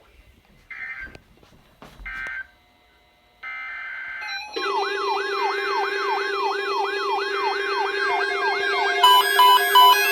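Weather-radio SAME data bursts: two short end-of-message bursts about a second apart closing the first alert, then a longer header burst for the next alert. About four and a half seconds in, a loud electronic siren-like tone starts, sweeping up and down about two to three times a second over a steady low tone, with beeping joining in near the end.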